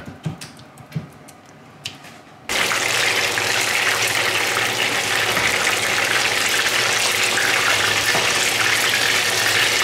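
A few soft clicks, then, about two and a half seconds in, battered frog legs frying in a skillet of hot oil start sizzling suddenly and keep up a steady, dense sizzle.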